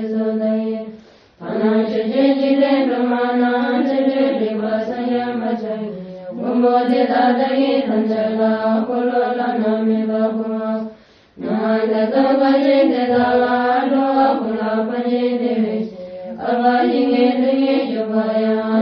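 Buddhist chanting set to music: long, held sung notes in phrases of about five seconds, each separated by a short pause.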